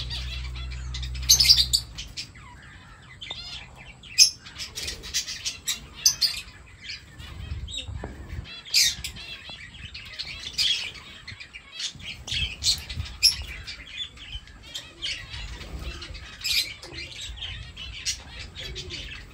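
Lovebirds chirping: many short, shrill chirps, some in quick runs, scattered throughout.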